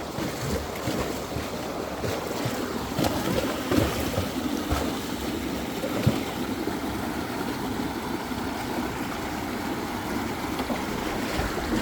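Waterfall water rushing steadily, with a few brief louder moments.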